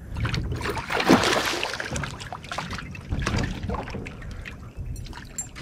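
A hooked bass thrashing and splashing at the surface beside a small boat as it is reeled in, the biggest splash about a second in, with scattered knocks after.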